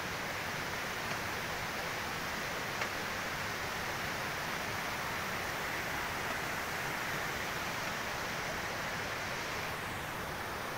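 Steady rushing of flowing water, an even hiss with no rhythm or clacking.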